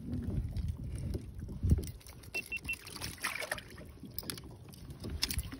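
Water sloshing and small knocks against a kayak hull while a hooked striped bass is handled at the surface, with scattered clicks. Three quick faint electronic beeps come about two and a half seconds in.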